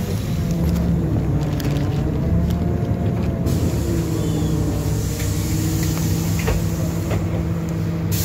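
NefAZ 5299 city bus driving, heard from inside the passenger cabin: a steady engine drone with a whine that rises and falls in pitch.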